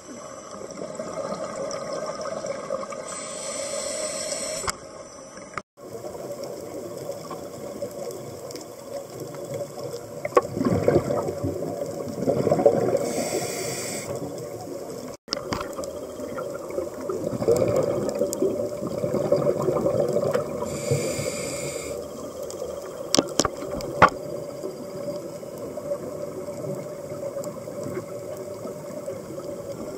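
A scuba diver's regulator breathing, heard underwater: a high hissing inhale every several seconds, each followed by a longer rush of exhaled bubbles, with a few sharp clicks near the end.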